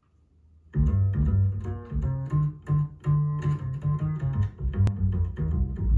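Jazz music starting about a second in, with plucked double bass and guitar, played back through home-built back-loaded horn loudspeakers (Fostex FE168SS-HP full-range drivers with T925A horn tweeters) driven by a 300B triode tube amplifier and heard through a microphone in the room.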